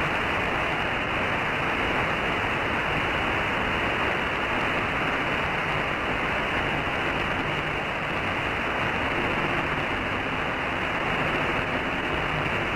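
Steady static hiss from a CB radio receiver, with no station talking. It comes on suddenly and holds at an even level throughout.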